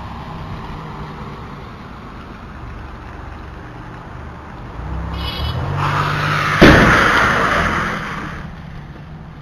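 Car and road noise on a wet street swells into a rushing sound, then a single loud crash impact comes about six and a half seconds in and dies away over a second or two: a car collision.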